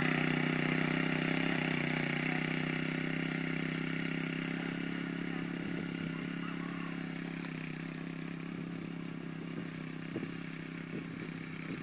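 Motorcycle engine running at a steady note that slowly fades as the bike rides away.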